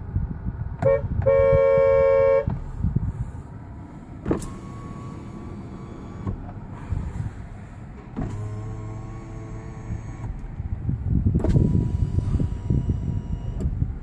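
Kia car horn sounding, a short blip and then a steady honk of about a second and a half. After that the electric windows run three times, each time a couple of seconds of motor whine that starts and ends with a click, as the windows are tested.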